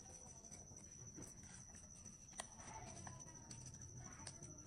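Near silence: a faint steady high whine with a few soft clicks and rubs, a sharper click about halfway, as a rubber balloon is worked onto a plastic tube by hand.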